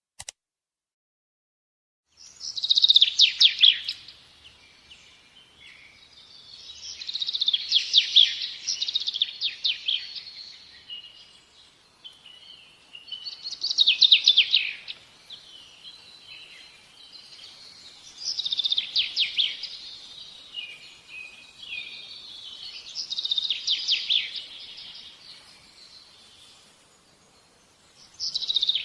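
A songbird singing: a high trilled phrase a second or two long, repeated about every five seconds, starting about two seconds in.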